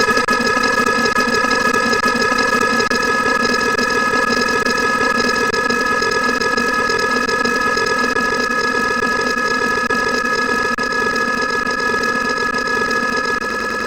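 A loud, steady drone: several held high tones over a rough, buzzing hum, unchanging throughout.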